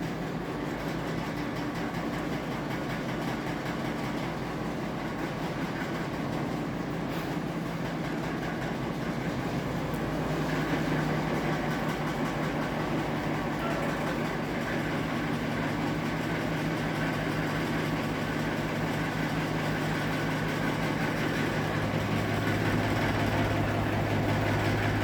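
Atomberg Renesa BLDC ceiling fan running at high speed with a steady mechanical drone and low hum, growing louder about ten seconds in and again near the end. This is the abnormal noise that starts above speed 4 and makes the fan unusable at high speed.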